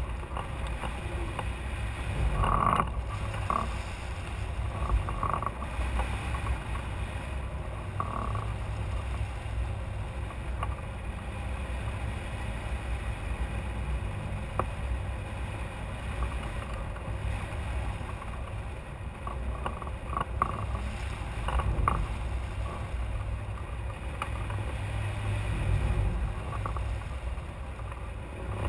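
Airflow rumbling over the microphone of a camera mounted on a hang glider in flight: a steady low wind rumble, with brief faint knocks or rattles now and then.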